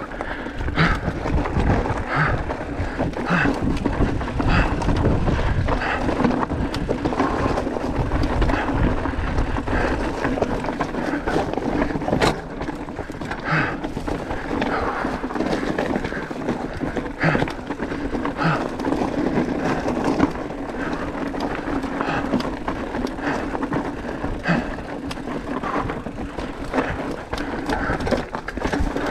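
Mountain bike descending a rough rocky trail: continuous tyre noise over loose stone and gravel, with frequent sharp knocks and rattles from the frame, chain and suspension as it hits rocks. A heavier low rumble fills the first several seconds.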